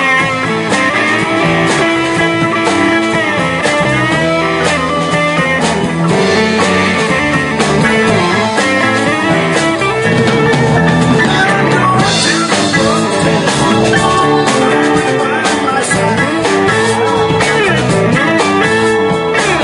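Live rock band playing: electric guitar lead over bass, keyboards and a steady drum beat, with sliding guitar notes.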